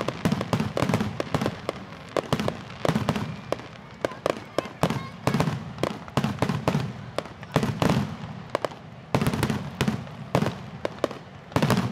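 Aerial fireworks shells bursting in a rapid, irregular string of sharp bangs and crackles, several a second, with deep thuds under them.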